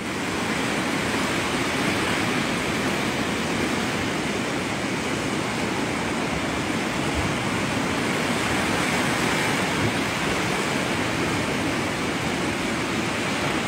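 Rough sea surf breaking against a rocky shore: a continuous, even rush of noise without pause.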